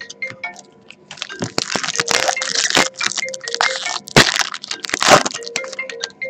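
Trading card pack wrapper crinkling and tearing as it is ripped open, a dense crackle with two sharper cracks near the end.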